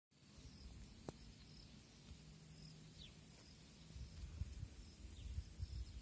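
Faint outdoor ambience: small birds chirping now and then in the distance over a low, gusty rumble of wind on the microphone that grows stronger after about four seconds. A single click about a second in.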